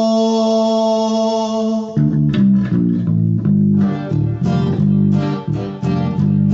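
A long sung note ends about two seconds in, then guitar and bass guitar play a rhythmic instrumental passage of strummed chords over a bass line.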